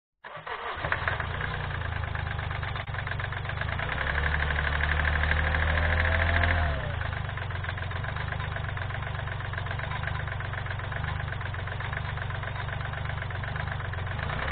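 Kia Rio 1.1 CRDi three-cylinder diesel engine running with a heavy knock. It gets louder about four seconds in and drops back to idle near seven seconds. The owner takes the knock for piston slap from badly worn pistons.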